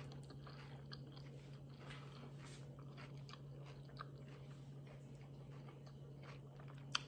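A person chewing a mouthful of lettuce salad with the mouth closed: a run of faint, soft crunches over a steady low hum, with a sharp click near the end.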